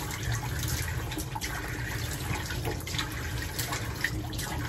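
Tap water running into a bathroom sink while water is splashed onto the face, with scattered small splashes and drips.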